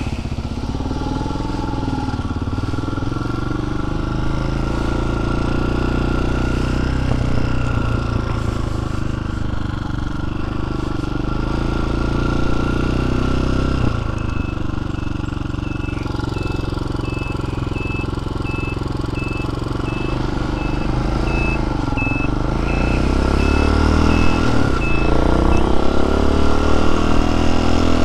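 TaoTao TBR7 dirt bike's engine running under way, its pitch rising and falling with the throttle. It climbs and gets louder as the bike accelerates over the last few seconds.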